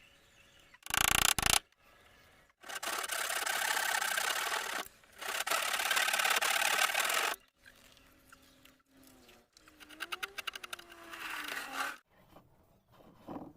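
A tool rasping on wood in two long, even stretches with a short break between them, after a short loud burst about a second in. Near the end it is fainter, with a wavering hum and a quick run of ticks.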